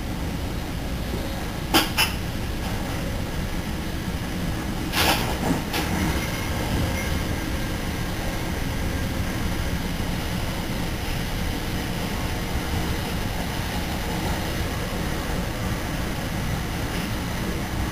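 Steady running noise inside an NJ Transit Multilevel cab car at speed: wheels rumbling on the rails. Sharp clacks come about two seconds in and again about five seconds in.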